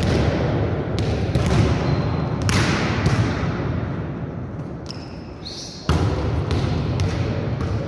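Volleyballs being struck and bouncing on a sports-hall floor: several sharp smacks, the loudest about two and a half seconds in, each echoing through the large gym, over a steady low rumble.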